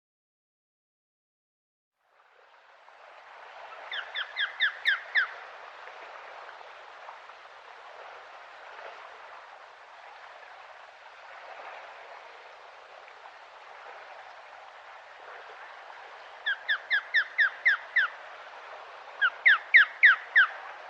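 Osprey calling: three runs of short, sharp whistled notes at about five a second, over a steady hiss of outdoor background noise that begins about two seconds in.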